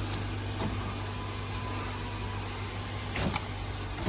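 Power window motor of a 2013 Nissan Versa running the newly fitted passenger door glass along its track, with a click about three seconds in and a thump at the end. The glass moves without binding or interference, a sign it is lined up right.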